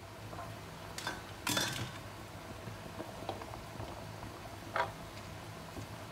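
Cubed potatoes and carrot sticks tipped into a wok of chicken pieces, landing as a few short clattering knocks against the pan. The loudest clatter comes about a second and a half in, and a low steady hum runs underneath.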